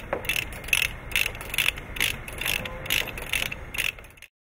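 Typewriter sound effect: sharp key clacks, a little over two a second, over a low mechanical rumble. It cuts off suddenly about four seconds in.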